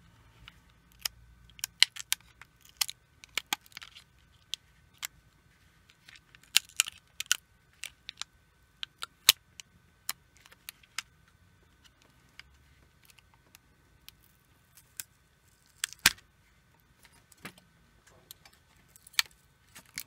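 Copper foil shielding tape crinkling and crackling as it is peeled off the projector's metal EMI shield, in irregular sharp crackles.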